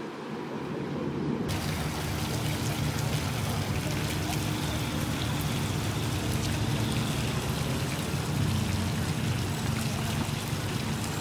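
Fountain water splashing in a steady, even rush, starting abruptly about a second and a half in after a short low rumble.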